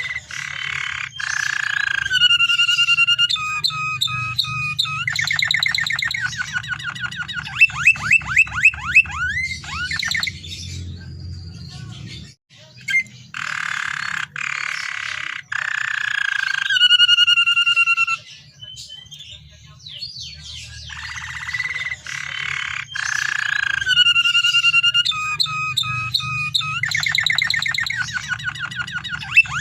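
Domestic canary singing long rolling song phrases: fast trills, buzzy rattles and held whistled notes, broken by two short pauses. A steady low hum runs underneath.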